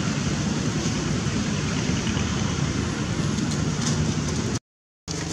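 Steady low rumbling noise with no monkey calls in it, cut off by a brief moment of dead silence near the end.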